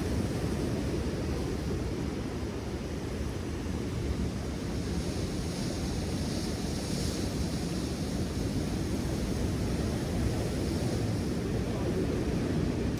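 Steady wind rumbling on the microphone over surf washing against the shore rocks, with a brief rise of hiss about six to seven seconds in as a wave washes in.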